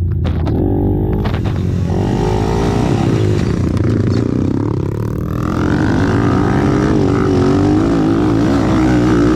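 Racing ATV engines running hard, their pitch rising and falling as they rev up and back off.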